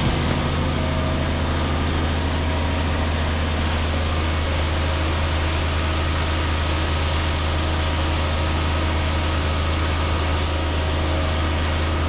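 An engine running at a steady, unchanging speed, a constant low drone with no change in pitch.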